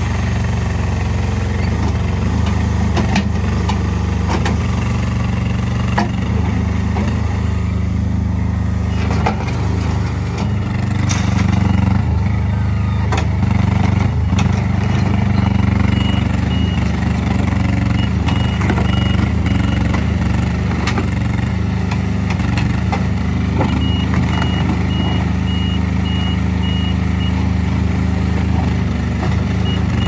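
Worky Quad WX15 skid steer loader's small engine running steadily under load, with scattered clanks and knocks from the working machine. A reversing alarm beeps in two runs, about halfway through and again later.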